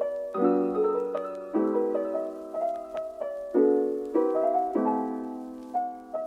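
Background music: a gentle piano piece, soft chords struck about once a second with a simple melody above.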